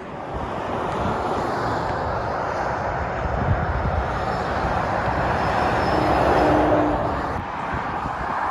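Motorway traffic passing: a steady rush of tyre and engine noise from lorries going by, swelling to a peak about six seconds in as one passes close.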